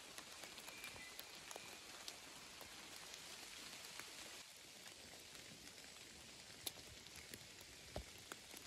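Faint scattered ticks over a low steady hiss, with two sharper clicks in the second half.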